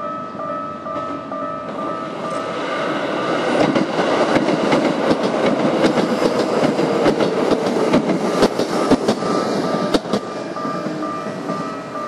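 Keikyu Daishi Line train passing over a level crossing, building from about two seconds in, with its wheels clacking over rail joints loudest in the middle and fading near the end. The crossing's warning bell rings a repeating two-tone clang about twice a second and is drowned out by the train while it passes.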